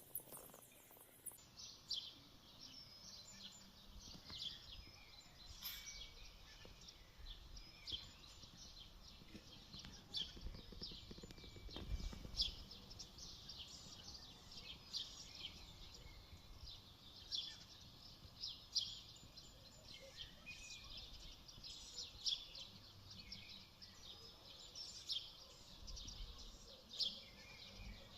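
Birds chirping, short high calls coming every second or so, faint over a low background rumble.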